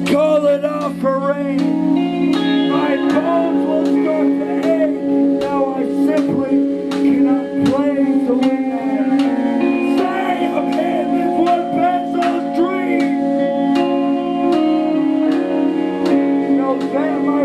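Rock band playing: bass guitar and electric guitar notes over a drum kit keeping a steady beat with cymbal hits, and a singer's voice at the microphone.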